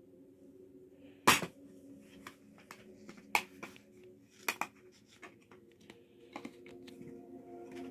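A plastic DVD case snaps open with a loud sharp click about a second in, followed by several lighter plastic clicks and taps as the disc is handled in its tray. Faint steady tones hum underneath.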